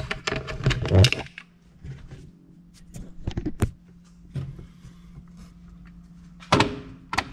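Scattered clicks, knocks and rustling of handling noise, with a steady low hum throughout. The clicks come in a cluster in the first second, a few more around the middle, and a short burst near the end.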